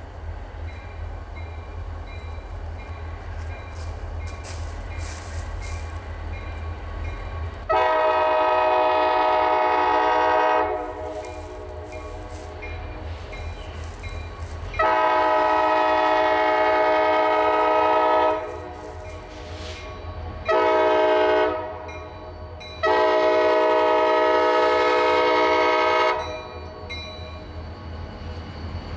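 RJ Corman diesel locomotive's air horn sounding the grade-crossing signal, long, long, short, long, as the train approaches the crossing. Under it, a steady low rumble from the approaching train.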